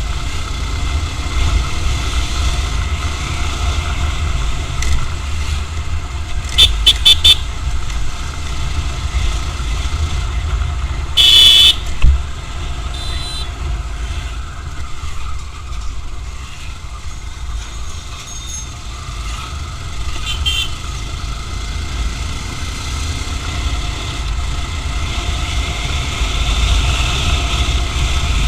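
Road traffic picked up by an action camera's built-in microphone while riding, a steady low rumble with vehicle horns honking over it: a quick run of four short toots about seven seconds in, a longer blast around eleven seconds, and a few more short toots later.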